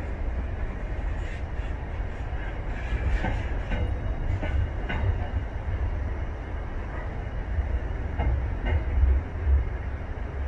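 Container freight train's wagons rolling past: a steady low rumble with scattered clicks and knocks from the wheels over the track, a cluster of them between about one and five seconds in and a couple more near the nine-second mark.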